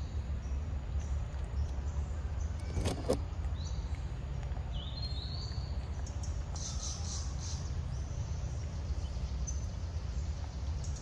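Forest ambience: birds chirping in short rising calls over a steady low rumble, with one sharp click about three seconds in.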